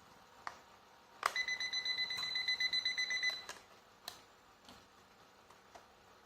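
Digital alarm clock beeping, a rapid string of short high beeps lasting about two seconds, with single plastic clicks before and after from the clock being handled.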